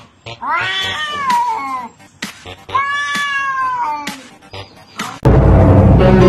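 Two domestic cats yowling at each other in a standoff: two long, wavering caterwauls, each about a second and a half, rising and then falling in pitch, with a few light clicks between them. About five seconds in, loud music cuts in.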